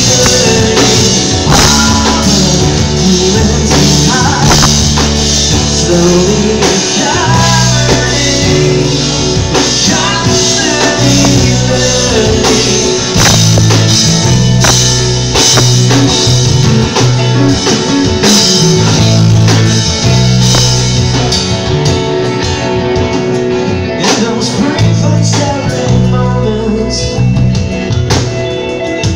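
Live rock band playing: a man singing lead over guitars, bass and drum kit, with steady cymbal and drum hits.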